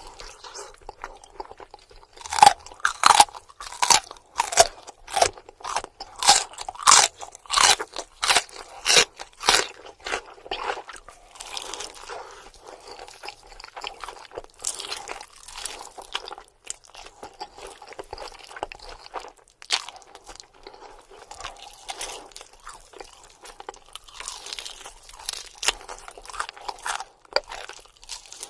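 Close-miked crunching and chewing of fried buffalo chicken wings. A quick run of loud, crisp crunches, about two a second, comes early, then settles into softer, steady chewing with a few louder crunches near the end.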